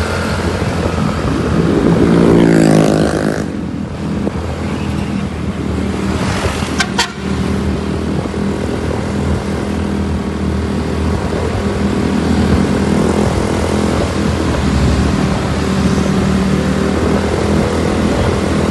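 Road vehicle engine running steadily, with a rise in pitch about two to three seconds in that cuts off sharply, and a short click about seven seconds in.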